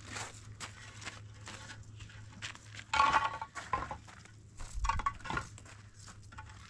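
Hollow concrete blocks knocking, clinking and scraping as they are picked up, carried and set onto a dry-laid block wall, with the loudest clinking knocks about three seconds in and again near five seconds.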